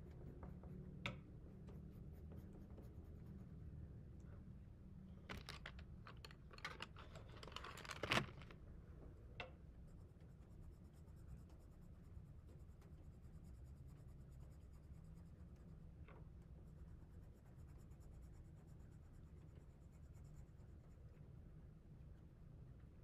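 Faint scratching of coloring on a paper template, with a cluster of clicks and taps about five to eight seconds in, the loudest just after eight seconds.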